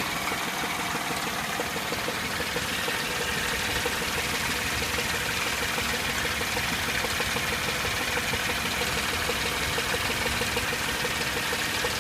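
2003 Chevy Tracker (Grand Vitara) engine idling steadily, with a low-pitched, slightly hollow knocking that is not completely evenly timed.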